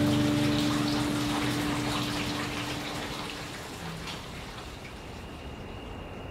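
Steady rain-like hiss with faint crackles from a background soundtrack, while the last held notes of music fade out over the first few seconds.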